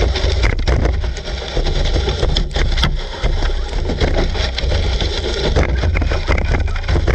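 GPTOYS S912 RC car running over grass, heard from a sled camera towed behind it: a steady low rumble with scraping and rattling.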